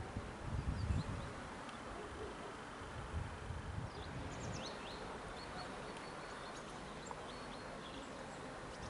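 Outdoor ambience: a steady hiss with low gusts of wind buffeting the microphone in the first second or so, and a few short, high bird chirps from about three seconds in.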